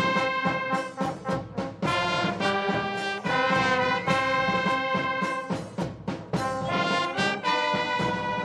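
Brass band music: brass instruments play a melody in held notes that change in steps.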